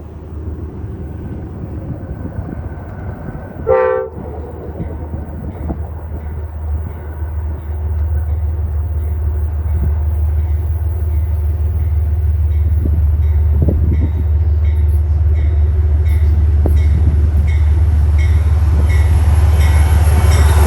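A train horn gives one short toot, then the low rumble of an approaching diesel train grows steadily louder, with a faint regular ticking repeating more than once a second.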